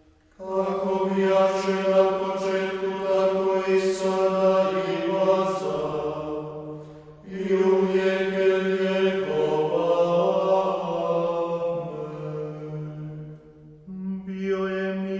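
A male vocal nonet of Conventual Franciscan friars chanting Vespers in three sung phrases. The second phrase begins about seven seconds in and the third near the end.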